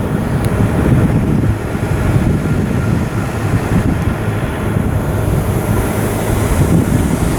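Wind buffeting the microphone: a loud, steady low rumble with no clear rhythm.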